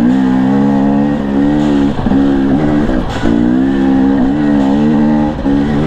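Husqvarna TE 250i two-stroke single dirt bike engine running at steady revs under way, its note breaking briefly a few times.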